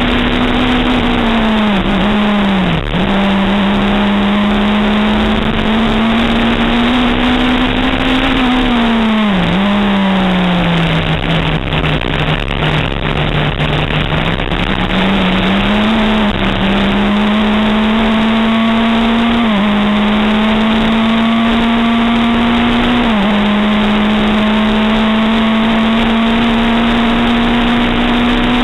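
Historic Formula 3 Berta's Volkswagen engine running hard at racing speed, heard from onboard with a rush of wind noise. The engine note climbs steadily under acceleration and drops sharply at each gear change, twice in the second half; midway it falls away and stays low for several seconds as the car slows, then picks up again.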